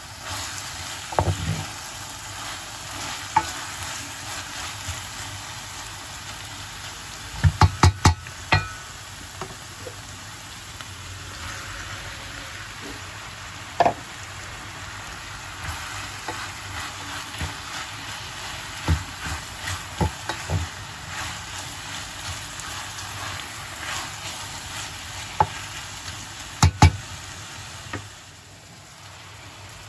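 Food sizzling in hot oil in a pan, with sharp clicks and knocks now and then as a utensil stirs and strikes the pan. The sizzle drops away about two seconds before the end.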